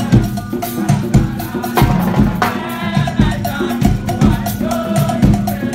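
Steel orchestra playing: many steelpans, from the tenor pans to the big orange bass pans, sound pitched notes together over a steady beat from a drum kit.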